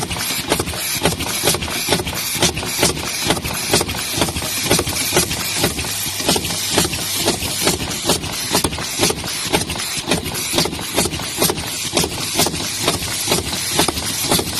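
Tyre-studding machine running, setting studs with a regular sharp clack about twice a second over a steady mechanical noise.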